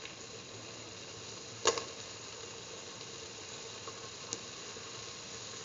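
Spiced paste with bell pepper pieces sizzling steadily in a frying pan, with one sharp click about a second and a half in and a faint tick near the end, as green bell pepper pieces go into the pan.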